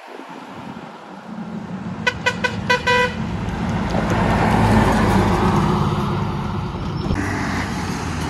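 A Hino truck gives a quick run of about five short horn toots. Its diesel engine and tyres then pass close by, loudest about five seconds in, and the noise of another passing truck follows near the end.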